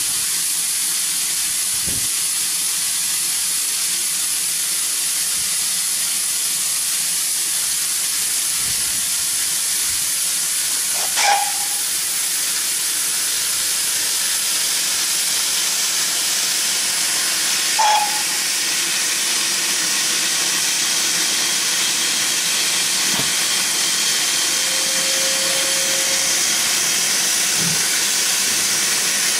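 Steady hiss of escaping steam from a standing GWR steam tank locomotive, with two short knocks about 11 and 18 seconds in.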